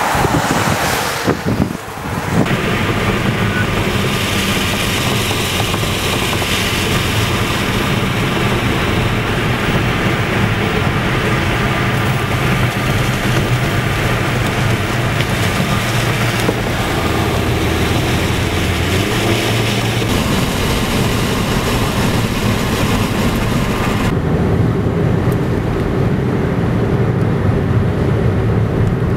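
Steady road noise and engine hum of a car driving, heard from inside the cabin, with the hiss turning duller near the end. In about the first two seconds, wind gusts on the microphone instead.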